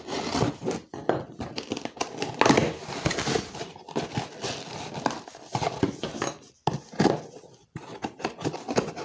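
Packing tape on a cardboard box being slit with a knife blade and torn, and the cardboard flaps pulled open: irregular crinkling, tearing and scraping.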